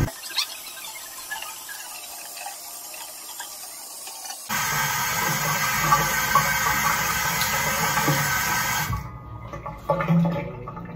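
Bathroom sink tap running, water splashing as a face is rinsed off. The water is faint at first, gets louder about four and a half seconds in, then stops suddenly about nine seconds in.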